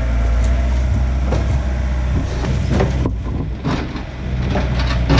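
Mini excavator's engine running steadily while its log grapple loads a white pine log onto a dump truck, with several wooden knocks and clunks as the log is set down on the logs in the truck bed, the last ones near the end.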